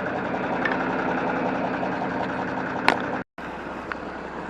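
John Deere 4630 tractor's six-cylinder diesel engine running steadily at low speed. A single sharp click comes near three seconds in, then the sound cuts out for an instant and the engine resumes a little quieter.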